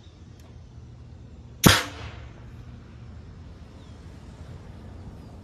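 Homemade PVC pneumatic tennis ball cannon firing once, about a second and a half in: a single sharp blast as its roughly 90 psi of stored air is dumped through the valve, dying away within a fraction of a second.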